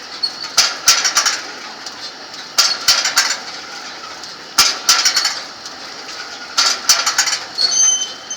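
Jean Tinguely's Heureka kinetic sculpture, its scrap-metal parts scraping and clanking as the machine turns. The clatter comes in a repeating cycle, a short burst of several sharp metallic knocks about every two seconds, four times.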